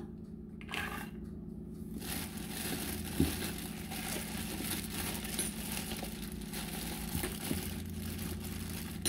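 Plastic bag crinkling and rustling as shelled fresh corn kernels are tipped from it into a glass blender jar, with a short knock about three seconds in, over a steady low hum.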